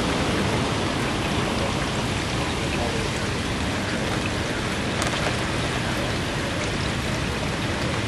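Steady rush of strong wind and rain during a hurricane, with a faint sharp tick about five seconds in.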